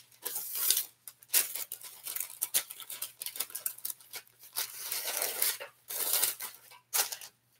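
Parchment paper rustling and crinkling in irregular bursts as its edges are folded under to fit a baking tray.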